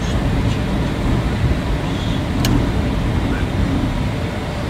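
Steady flight-deck noise of an Airbus airliner in flight on approach: a constant rush of airflow over the cockpit with engine hum underneath. A single faint click about halfway through.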